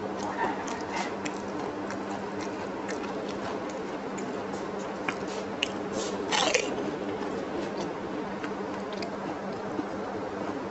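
A person eating fuchka (pani puri): crisp hollow shells filled with tamarind water are bitten and chewed whole, giving scattered small wet clicks and squishes and a louder crunch a little over six seconds in, over a steady low hum.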